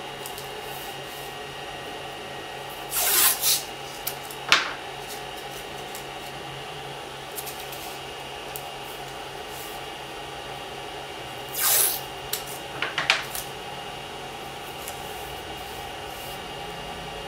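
Strips of masking tape pulled off the roll and torn, in a few short noisy bursts about three seconds in and again about twelve seconds in, with the tape pressed and rubbed onto the glass print bed between them. Under it runs the steady hum of the heating 3D printer's fans.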